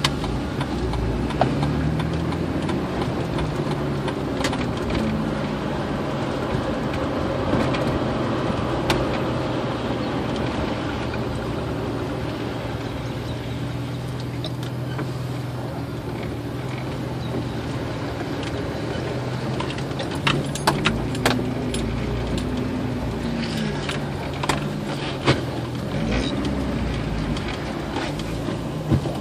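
Car engine and road noise heard from inside the vehicle while driving slowly, the engine's pitch rising and falling as it speeds up and slows. Several sharp clicks or knocks in the last third.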